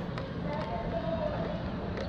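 Steady low rumble of wind and city noise on a helmet-mounted action camera's microphone high on a building face. Faint distant voice-like tones drift over it, and two light clicks come early on.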